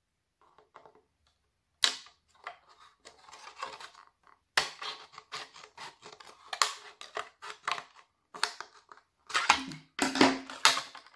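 Scissors snipping through a thin clear plastic cup: irregular sharp snaps and crackles of the plastic giving way, in quick clusters after about four seconds.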